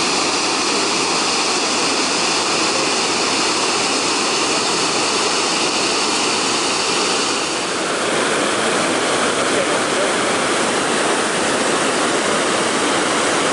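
Large waterfall plunging into a gorge: a loud, steady rush of falling water. Its tone shifts slightly about halfway through.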